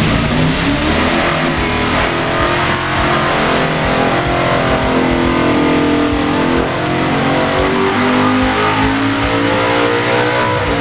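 Carburetted Ford 393 Cleveland V8 on an engine dyno, running hard under load through a power pull. Its pitch climbs steadily as the revs rise.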